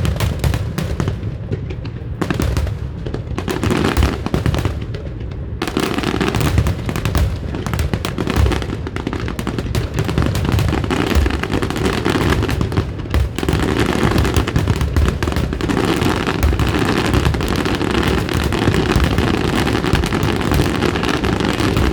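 Fireworks going off in a dense barrage of booms and crackling bursts. Short gaps between volleys in the first few seconds give way, about six seconds in, to an almost unbroken barrage.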